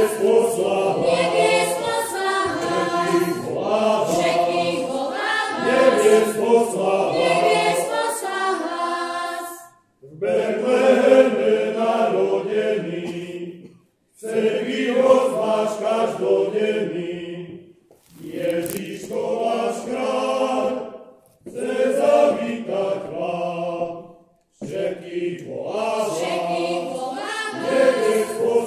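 A group of voices singing together in a church, in phrases of a few seconds, each followed by a brief pause.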